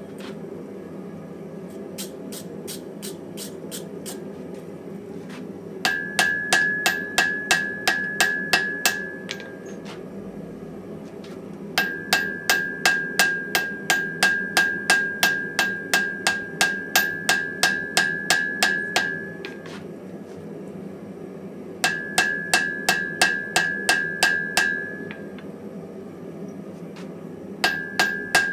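A hand hammer forging a red-hot steel ball peen hammer head on an anvil. It strikes in runs of about three blows a second, with the anvil ringing on a high note, and pauses between runs. The blows in the first few seconds are lighter and sparser. A steady low hum runs underneath.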